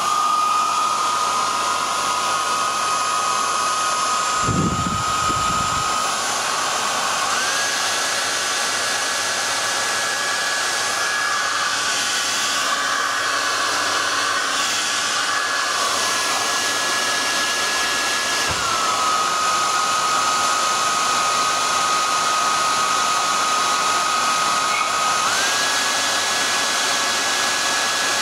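Electric hair dryer running, a steady rush of air with a motor whine on top. The whine steps up in pitch about seven seconds in, drops back around eighteen seconds, and rises again near the end as the dryer is switched between its low and high settings.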